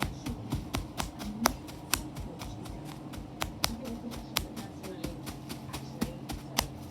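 Plastic bubble wrap being popped bubble by bubble: sharp, irregular pops about three or four a second, stopping just before the end.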